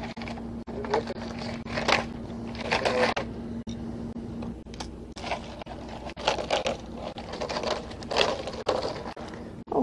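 Irregular scraping and crunching from a coil of rigid vinyl rub rail being handled and uncoiled on gravel, in about half a dozen short noisy bursts.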